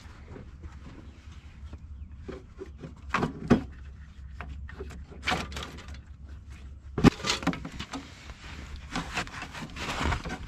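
Hands working a new fuel hose on a tractor: scattered knocks, clicks and crackly scrapes, with a louder cluster about three seconds in, another about seven seconds in and more near the end, over a steady low hum.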